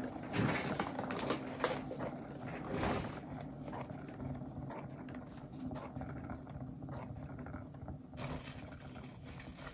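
Paint-pouring turntable spinning a canvas, giving a steady rumble with a low hum and light rattling that grows gradually quieter as it runs.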